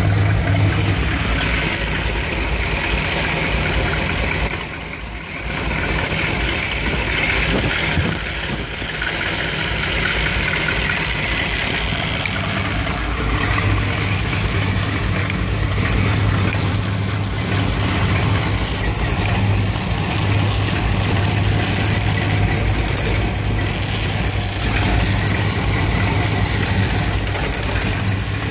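A 1975 Dodge B200 van's Mopar 360 (5.9 L) small-block V8 with a two-barrel carburettor idling roughly once warmed up. This is the rough warm idle, linked to stalling, that a new ignition coil has not cured. The sound dips briefly about five seconds in, and again less deeply at about eight seconds.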